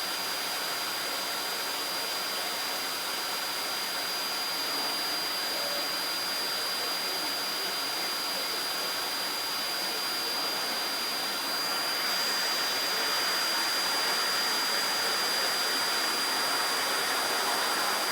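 Vacuum cleaner running steadily with a thin high whine over its rushing air, growing a little louder about two-thirds of the way through as it is pushed around.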